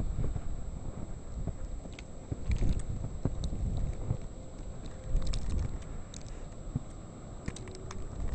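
Wind buffeting the camcorder microphone, with uneven footsteps crunching through deep snow.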